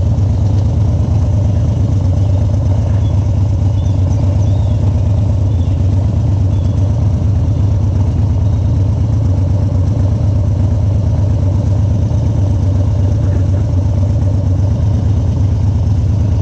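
Harley-Davidson Dyna Street Bob's 1600cc air-cooled V-twin running at a steady idle, with no revving.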